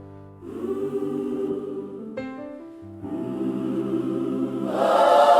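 Choir holding long chords with instrumental accompaniment, no words yet, swelling louder near the end.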